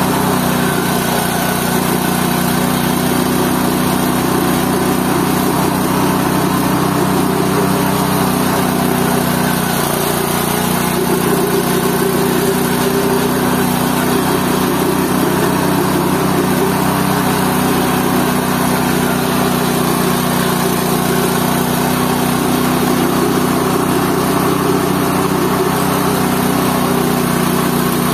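GT-14 organic-waste slurry grinder (mesin pembubur) running steadily, its motor and grinding drum giving a loud, unbroken engine-like hum.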